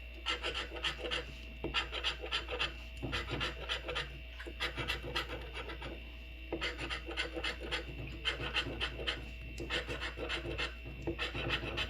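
Scratch-off lottery ticket being scratched, a quick run of short scraping strokes with a couple of brief pauses.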